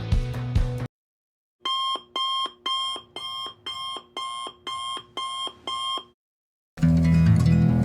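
Electronic alarm-clock beeping: about nine pitched beeps at roughly two a second, then it stops. Background music plays just before and resumes near the end.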